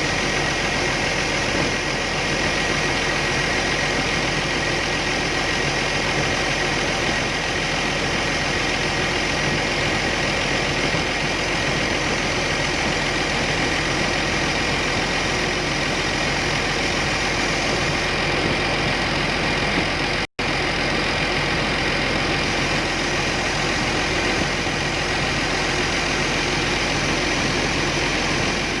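Kobelco 850 excavator's diesel engine idling steadily, with a momentary break about twenty seconds in.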